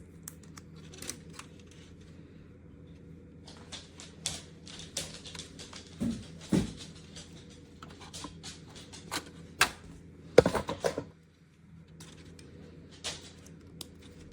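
Irregular clicks, taps and knocks of hard parts being handled, most likely the PC case itself, over a steady low hum. The loudest run of knocks comes about ten seconds in, followed by a brief lull.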